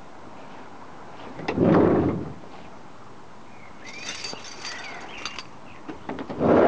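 The sliding side door of a 1977 VW Westfalia camper rolling shut near the end and closing with a clunk. About a second and a half in there is a brief loud rushing noise, and faint rattles and clicks come in between.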